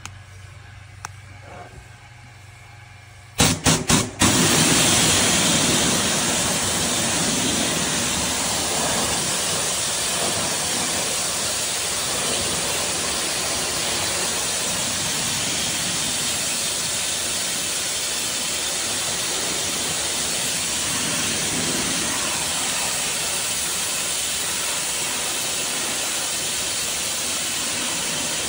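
Pressure washer spraying the underside of wooden deck boards: a loud, steady hiss of the water jet on the wood. It starts about three seconds in with a few short on-off bursts as the trigger is pulled.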